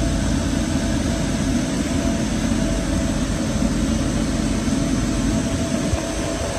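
Steady road noise inside a moving car's cabin on a snow-covered highway: a continuous low rumble of tyres and engine, with a faint steady whine above it.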